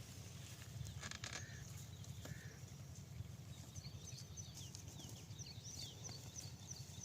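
Small birds chirping in a quick run of short, high, falling notes from about four seconds in, with a few shorter calls earlier, over a steady low rumble.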